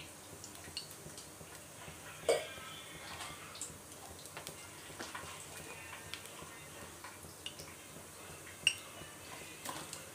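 Steel kadai with a little oil heating on a gas stove: scattered faint ticks and clicks over a faint steady background, with a louder metallic clink about two seconds in and another near the end.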